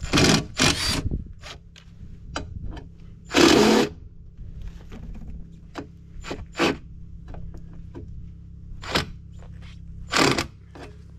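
Tools working on the bolted side cover of a mini excavator: scattered metal clicks and scrapes, with short harsh bursts of power-tool noise at the start, about three and a half seconds in, and again near the end.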